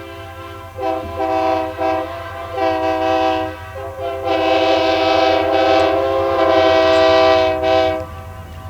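Diesel freight locomotive's air horn sounding a chord in several short blasts, then one long blast of about four seconds that ends near the end. A steady low hum runs beneath it.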